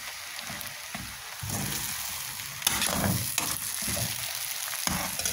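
Chow mein noodles with pork and cabbage sizzling in a hot pan, stir-fried with a utensil that scrapes and knocks against the pan at irregular intervals, with one sharp click about two and a half seconds in.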